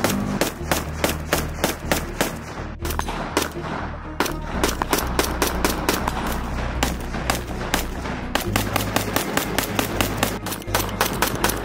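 CZ Bren short-barreled rifle in 7.62x39 firing a fast string of shots, about four to five a second, with a short break about three seconds in.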